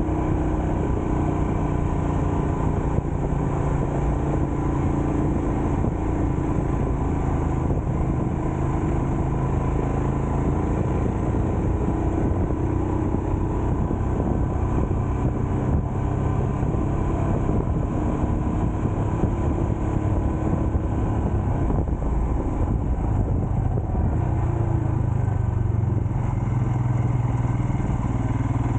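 Vehicle engine running steadily on the road with constant wind and road noise; the engine note shifts slightly and strengthens near the end.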